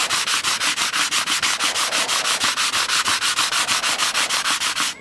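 Sandpaper rubbing over a wooden jigsaw puzzle in rapid, even strokes, about eight a second: fine sanding that polishes the wood smooth. It stops abruptly at the end.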